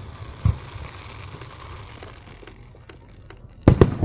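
Aerial fireworks going off: a dull boom about half a second in, then a hiss that fades after a couple of seconds, a few sharp pops, and two loud bangs in quick succession near the end.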